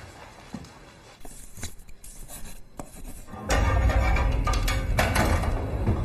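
Quiet room tone with faint scratches and clicks of a pen writing and papers being handled; about three and a half seconds in, tense background music with a low drone starts suddenly and is by far the loudest sound.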